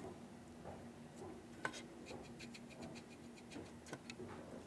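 Faint scratching and tapping of a fine paintbrush working chalk and paint into the roof of a model freight car to weather it, with one sharper click about a second and a half in.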